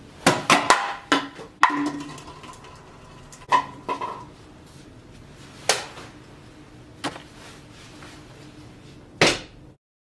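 A series of about ten sharp knocks and clanks at uneven intervals, a few of them leaving a brief ringing tone, the sort of sound hard objects make when struck or set down. The sound cuts off suddenly just before the end.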